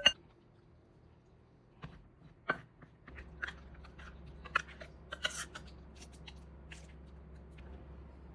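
Food-preparation handling sounds: a sharp click at the start, then scattered light clicks, taps and crunchy rustles, over a low steady hum from about three seconds in.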